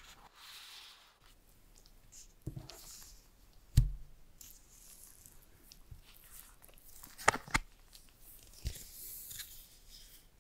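Gloved hands handling an iPhone 12, its box and the paper insert: soft rustles and scrapes, a sharp tap about four seconds in, two quick clicks a little after seven seconds and another near nine.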